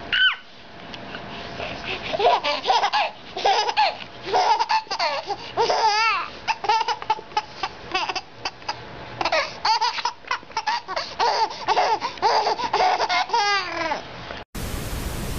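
A baby laughing in repeated giggling peals, some rising into high squeals. The laughter breaks off near the end into a short burst of steady hiss.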